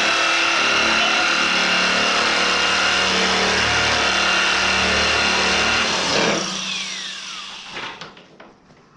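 Corded electric die grinder running with a steady high whine as it grinds the edge of a freshly cut hole in a steel barrel. It is switched off about six seconds in, and its whine falls as it spins down, followed by a few light knocks.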